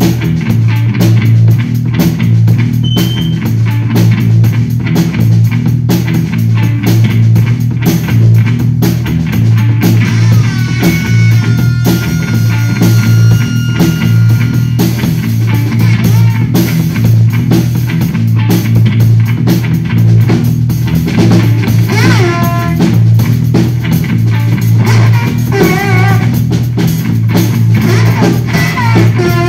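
Live instrumental rock from electric bass guitar through effects and a Yamaha drum kit: a low bass note pulses in a steady rhythm under continuous drumming. High held and wavering tones come in about ten seconds in and again near the end.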